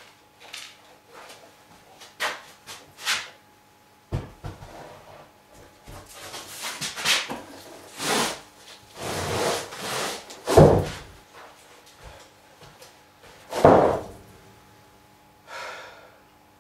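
Wide rough-milled wooden boards being carried in and laid down on a plank floor: scraping and knocking of wood on wood, with several heavy thuds. The loudest thud comes about ten and a half seconds in, another near fourteen seconds.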